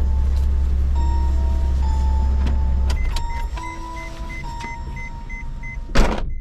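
Low, steady engine rumble of a parked car heard from inside the cabin, which drops away about three seconds in as the engine is switched off; a quick, soft beeping starts at the same moment. Near the end comes one loud whoosh.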